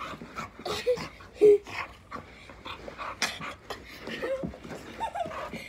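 Dog whining in short cries that bend in pitch, with panting and scuffling as it plays roughly with a person. The loudest cry comes about one and a half seconds in.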